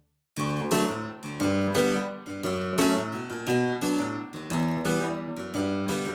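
Background music with plucked notes, harpsichord- or guitar-like, starting after a brief silence about a third of a second in.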